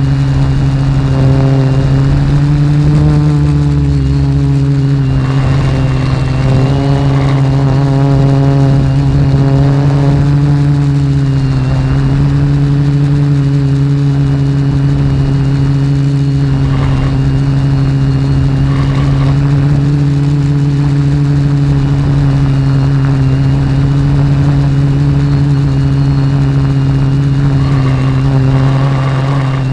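Reptile Aphid X450 quadcopter's electric motors and propellers running, heard from the onboard camera as a loud, steady hum. The pitch wavers and climbs in places as the motors speed up and slow down in flight.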